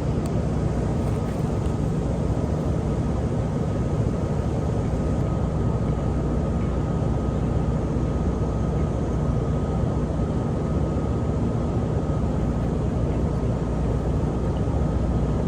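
Steady low rumble of outdoor background noise with a faint, steady high tone running through it; no distinct sound stands out.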